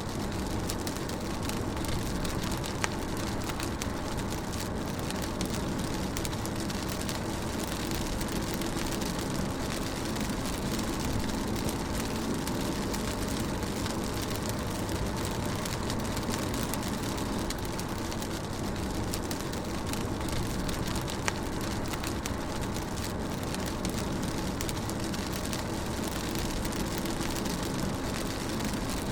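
Rain on a car while driving, heard from inside the cabin: a steady hiss of rain and tyres over a low engine and road drone, with the odd faint drop tick.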